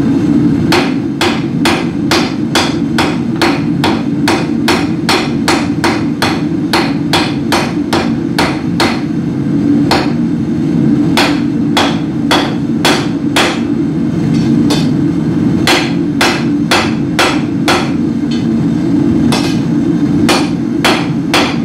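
Hand hammer striking red-hot mild steel bar stock on an anvil, about three sharp blows a second in runs with short pauses between them, over a steady low rumble.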